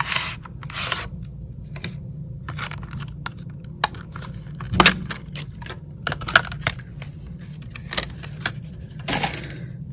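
Irregular light clicks and taps from small metal repair tools and phone parts being handled on the bench during a phone screen swap, over a low steady hum.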